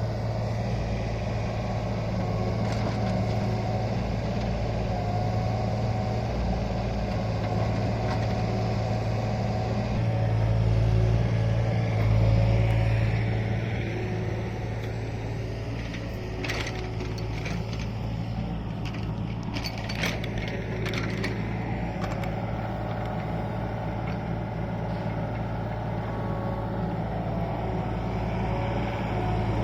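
Hydraulic excavator's diesel engine running steadily, swelling in level briefly about ten to thirteen seconds in. Around the middle, the toothed bucket scrapes and crunches through the soil of a slope in a run of sharp scrapes and knocks.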